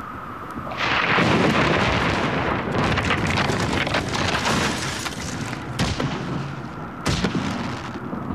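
Cartoon sound effects for a cracked block of ice hurtling through the air. A loud rumbling, crackling rush starts about a second in and dies down after a few seconds, followed by two sharp bangs near the end.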